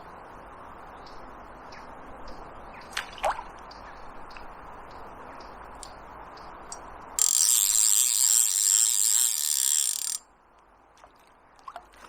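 Centrepin reel's ratchet check buzzing loudly as the drum spins fast, starting sharply about seven seconds in and cutting off abruptly about three seconds later. Before it there is a steady hiss of running river water.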